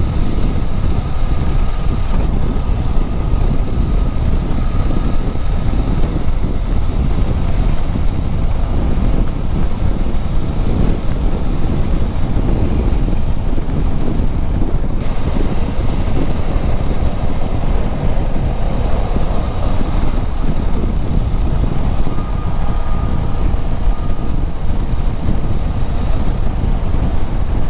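Steady wind rushing over the camera microphone of a KTM 390 Adventure X motorcycle at road speed, with the bike's single-cylinder engine running beneath it.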